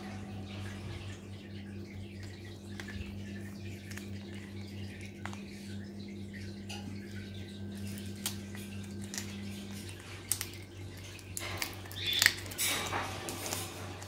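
African grey parrot's beak crunching and tearing dry birch bark: scattered small clicks and crackles that grow busier about ten seconds in. A steady low hum runs underneath.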